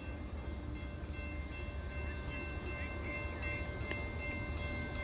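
Amtrak P42DC diesel locomotives approaching in the distance: a low rumble with a steady horn tone held over it from about a second in.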